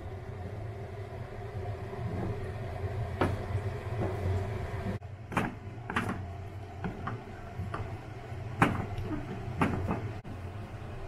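A wooden spatula stirring and scraping thick mashed sweet-potato paste in an aluminium saucepan, with about five sharp knocks of the spatula against the pan, over a steady low hum.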